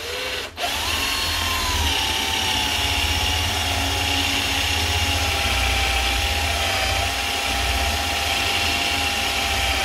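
Electric drill boring out a rivet in a car door hinge limiter. The motor runs with a steady whine that cuts out briefly about half a second in, then starts again and sags slightly in pitch over the first second or two before holding.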